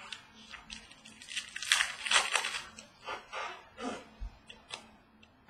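Trading cards being handled: card stock rustling and sliding as cards are flipped through, with a few light clicks.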